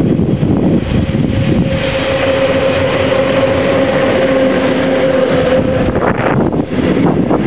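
Electric-locomotive-hauled passenger train with double-deck coaches passing close by, a loud steady rumble of wheels on rail. A steady mid-pitched whine rises out of the rumble about a second and a half in and holds for several seconds before fading.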